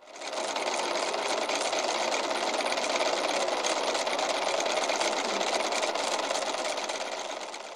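Printing-press sound effect: a steady, fast mechanical clatter that fades in at the start and fades out near the end.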